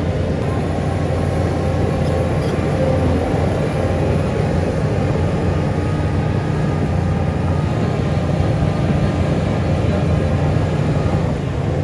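Heavy earthmoving machinery's diesel engine running steadily.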